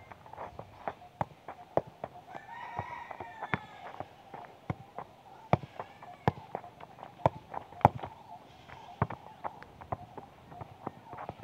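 Football being kicked repeatedly in keepy-uppy juggling, with irregular sharp thuds several times a second, mixed with footsteps on dry dirt.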